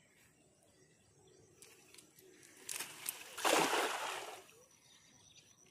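A cast net thrown onto the water. A short rush of noise comes first, then the weighted rim of the net splashes down across the surface for about a second.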